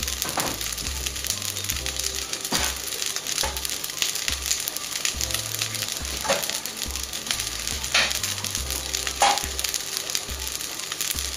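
Basil-pork fried rice sizzling in a steel wok over a wood fire, with about five sharp pops spread through, the loudest near the end. Background music with a repeating bass line runs underneath.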